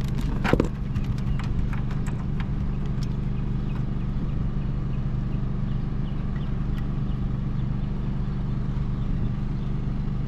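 Steady low machine hum, with a few light clicks and a short sharp clatter about half a second in.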